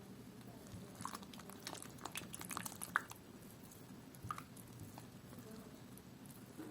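Light clicks and taps of kitchen utensils against a bowl: a quick run of them, a sharper tap about three seconds in and another a little after four seconds.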